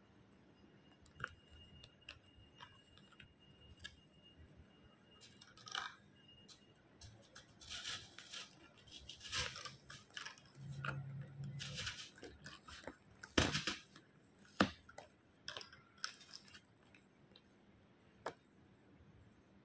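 Beaded flower stems and plastic leaves being handled in a plastic pot: scattered light clicks and crunchy rustles, busiest around the middle, with one sharp click a little after.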